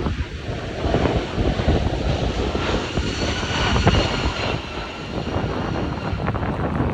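Jet airliner engines running, with a faint high whine strongest around the middle, heard under strong gusty wind rumbling on the microphone.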